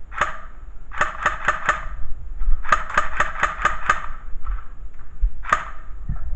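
Airsoft pistol firing in quick strings of sharp pops: a single shot, then four in a row, then six in a row at about four a second, then one more shot. Each pop rings briefly off the hard walls around it.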